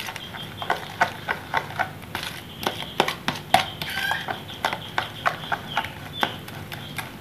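Metal spoon stirring a thick, wet egg and milk-powder bait mix in a plastic bowl, with irregular clicks and scrapes as the spoon knocks against the bowl, a few each second.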